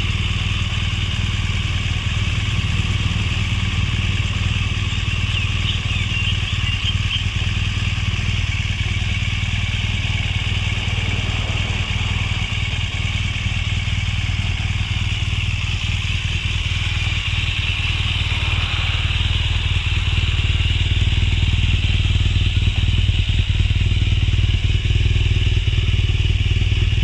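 BMW R1200GS Adventure's 1170 cc boxer twin idling steadily, a little louder near the end as the exhaust silencer comes close.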